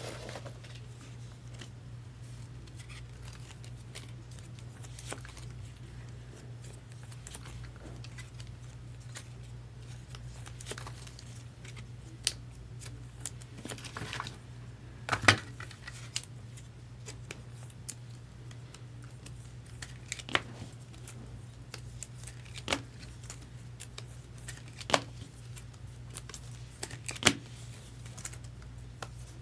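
A sealed baseball card box being opened: wrapping cut and torn and packaging handled, with scattered sharp clicks, the loudest about halfway through, over a steady low hum.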